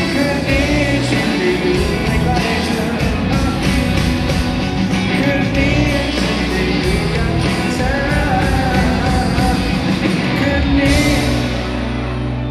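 Live rock band playing a song with a male singer; about eleven seconds in a cymbal crash, after which the music thins out to a held low chord as the song closes.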